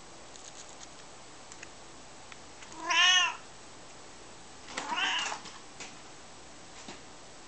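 Maine coon cat meowing twice: one loud, rising-and-falling meow about three seconds in, then a shorter, quieter one about two seconds later.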